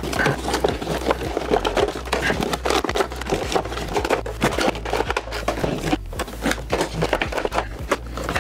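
Plastic blister trays and cardboard boxes of action figures being handled and pulled apart: dense crinkling, scraping and tapping of packaging. A steady low hum runs underneath.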